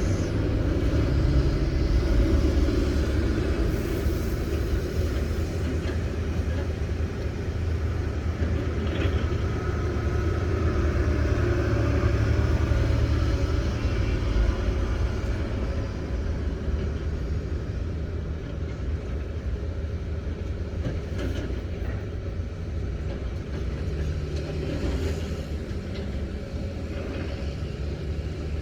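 Diesel engine of a working excavator running steadily, with a low drone; it eases off slightly about halfway through.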